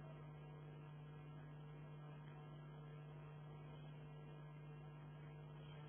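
Near silence: a steady low electrical hum with faint hiss on the recording.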